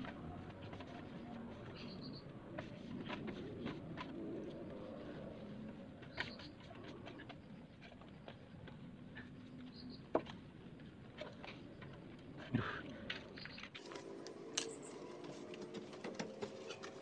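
A cloth rubbing and wiping over a scooter's front wheel and fork, with scattered light taps and clicks of handling. Two sharper knocks come about ten and twelve and a half seconds in.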